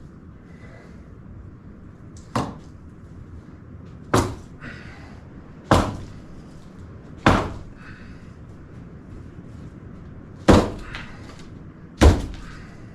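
Six hard, sharp knocks or whacks, a second or two apart, each followed by a brief ringing tail and a fainter second knock.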